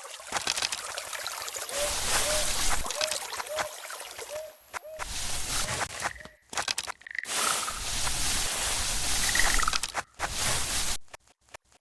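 Trickling, sloshing water with a row of short repeated chirping calls, broken off abruptly by several sharp cuts.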